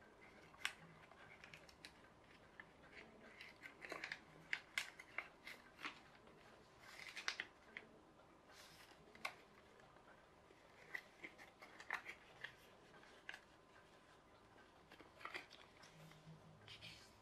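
A sheet of paper being folded and creased by hand into a paper aeroplane: faint scattered crisp crackles and short rustles, with quiet stretches in between.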